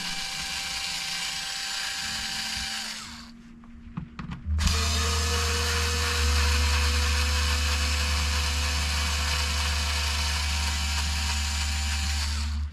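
Electric screwdriver running steadily while backing out screws, stopping for a second or so about three seconds in with a few clicks, then running again until it cuts off at the end.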